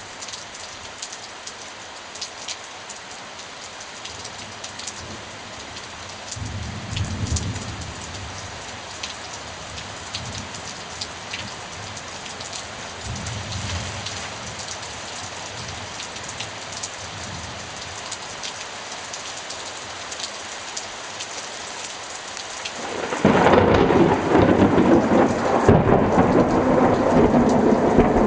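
Steady rain pattering on the garden, with low thunder rumbling faintly twice. Near the end a sudden, much louder peal of thunder breaks and keeps rumbling.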